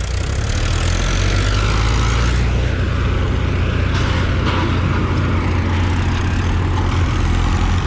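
Diesel farm tractor engines running steadily at close range as the tractors drive across a tilled field, a constant low drone.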